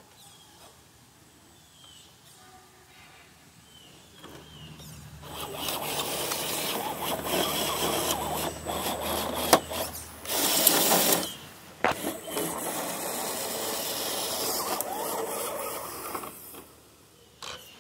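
Vaterra Ascender RC rock crawler's small electric motor and geared drivetrain running under load, with its tyres scrabbling over rock. It starts about five seconds in, pauses briefly twice and stops shortly before the end.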